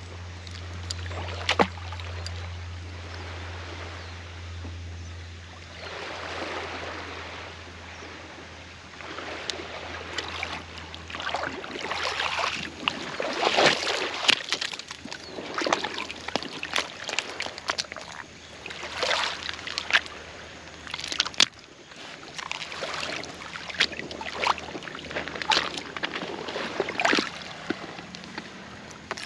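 Seawater sloshing and lapping in irregular surges with small splashes, over a low steady hum that fades out about a third of the way in.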